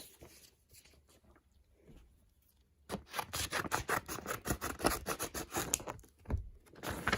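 Packaging being handled and opened: a fairly quiet start, then a quick run of crackly rubbing and scratching strokes from about three seconds in.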